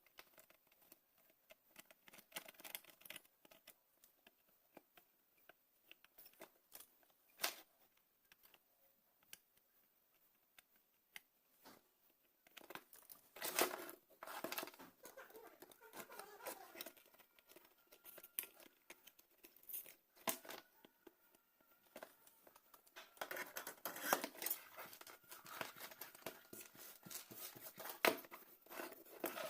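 Scattered clicks, scraping and rustling of hand tools working burnt components off a battery charger's circuit board, busiest twice in the second half.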